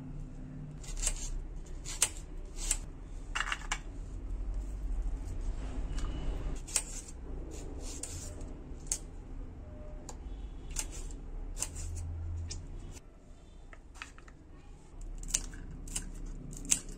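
Kitchen knife cutting vegetables, its blade clicking sharply and irregularly against a stone countertop. Near the end, scissors snip a green chilli into short pieces with a few quick clicks.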